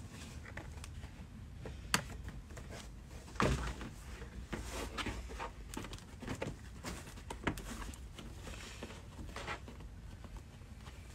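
Scattered clicks, knocks and rustling from a suede-covered car rear package tray being handled and turned over, with a sharp click about two seconds in and a louder knock and rustle a little later, over a steady low hum.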